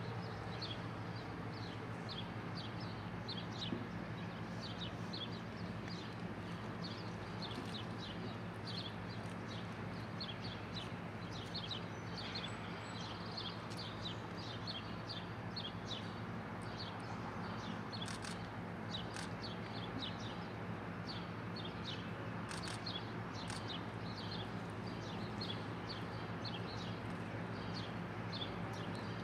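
Small bird chirping over and over, short sharp chirps about one or two a second, over a steady low engine hum.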